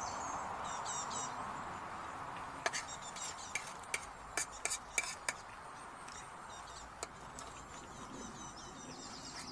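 Metal cutlery clinking against a plate or tin, a quick run of sharp clicks in the middle and one more later, over a steady background hiss, with a few faint bird chirps.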